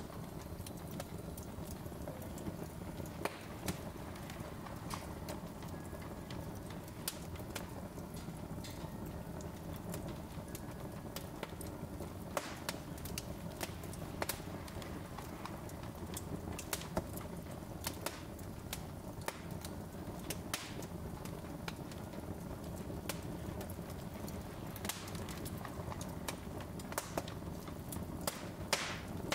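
Wood fire burning in an open fireplace: irregular crackles and pops from the burning logs over a low steady rumble of the flames.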